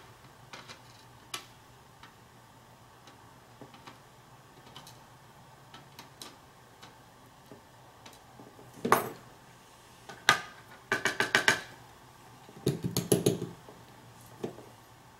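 Small metal clicks, taps and rattles of lock pins, springs and tools being handled as a Euro cylinder lock is taken apart and its pins fished out. Scattered light clicks at first, then louder clusters of quick clicks and rattles in the second half.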